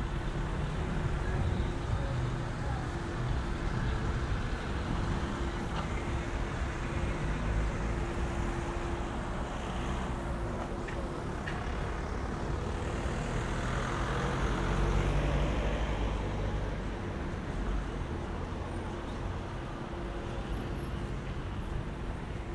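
Road traffic: cars passing on the road over a steady hum, with one vehicle swelling louder as it passes about two-thirds of the way through.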